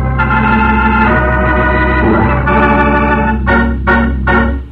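Organ music bridge closing a radio-drama scene: held organ chords that shift several times, with a few short repeated chords near the end.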